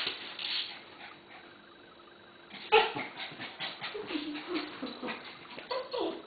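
A golden retriever puppy and a Lhasa Apso playfighting: short growls and whines with bending pitch, mixed with scuffling. There is a quieter pause about a second in, and the sounds pick up again near the three-second mark.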